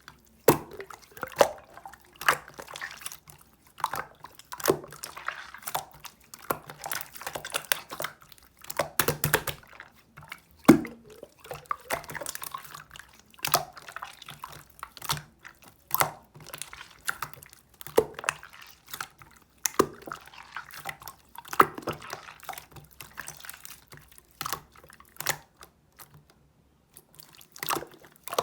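Irregular wet clicks and drips, one every second or two.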